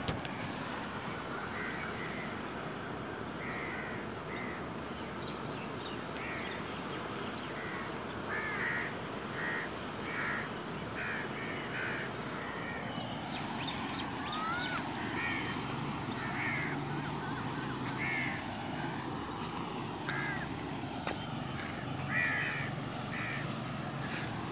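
Crows cawing again and again, short calls repeating through the whole stretch over a steady background hiss.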